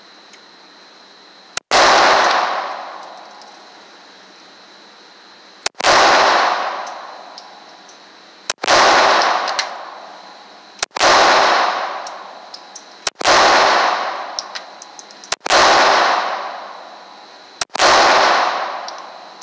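Handgun fired at an indoor shooting range: seven single shots spaced two to four seconds apart, each followed by a long echo off the range walls.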